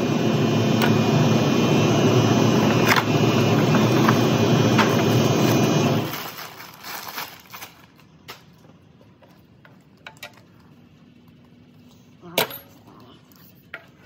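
A loud, steady machine noise like a running motor shuts off about six seconds in and winds down over about a second. After that come light taps of parts being handled and one sharp metallic clink near the end.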